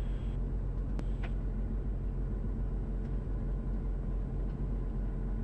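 Diamond DA40's engine and propeller running at taxi power, a steady low drone inside the cabin, with one faint click about a second in.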